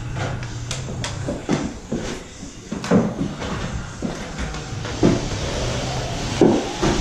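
Drywall finishing box on an extension handle knocking and scraping against the drywall as joint compound is run onto the wall: a string of irregular sharp knocks, roughly one or two a second, over a steady scraping hiss and a low hum.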